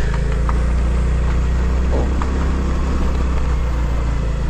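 Small motorcycle engine running steadily while riding along a rough dirt track, with a few short knocks and rattles.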